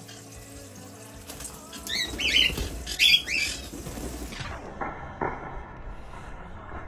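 Thin stream of water running from a bird bath's toy faucet while green-cheeked conures bathe, with a loud burst of splashing, wing flapping and short chirps between about two and three and a half seconds in, and a couple of sharp clicks about five seconds in.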